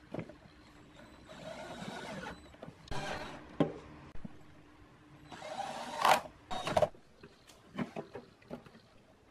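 Hands handling the metal case of a power amplifier on a wooden bench: several short scraping slides, with sharp knocks and clicks of metal against metal and wood.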